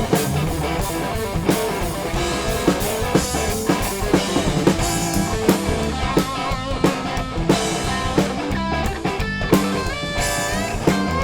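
Rock music: a drum kit keeping a steady beat under electric guitar and bass, with the guitar sliding and bending notes upward near the end.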